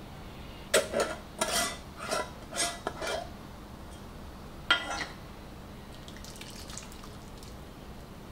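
Kitchenware clinking against a ceramic mixing bowl: a quick run of five or six sharp clinks, another single clink a moment later, then faint scraping as ingredients are scraped into the bowl.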